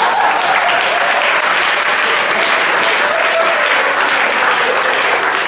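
Audience applauding steadily in response to a joke.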